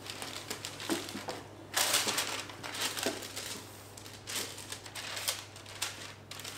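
Tissue paper rustling and crinkling as it is handled and folded over a wrapped shoe in a cardboard shoebox, in uneven bursts, loudest about two seconds in.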